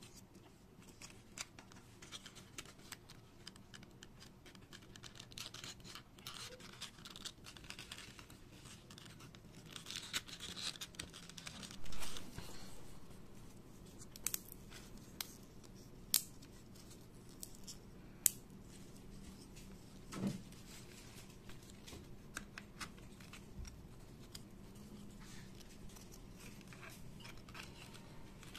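Foam 3D puzzle pieces scraping and rubbing as they are handled and pressed into place, with scattered sharp clicks and a louder bump about twelve seconds in.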